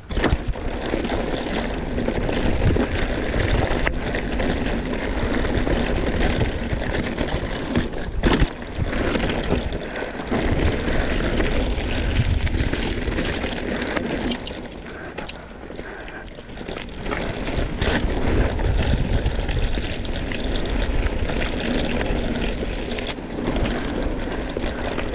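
Mountain bike riding down a dirt trail: a steady rumble of wind on the microphone and tyres running over loose dirt and stones, with frequent short knocks and rattles from the bike over bumps.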